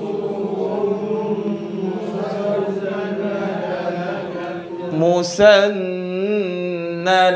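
A group of voices reciting a Quranic verse together in a slow, drawn-out chant, the students' repetition of 'ka'annahum khushubun musannadah' in a tajwid drill. Just after five seconds there is a sharp click, and a single louder voice comes in on a wavering held note.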